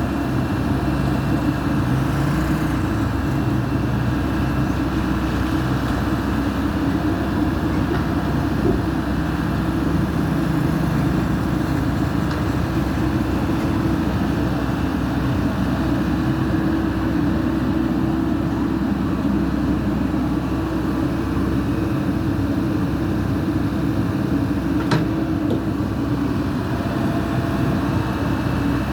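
Backhoe's diesel engine running steadily, with a single sharp click near the end.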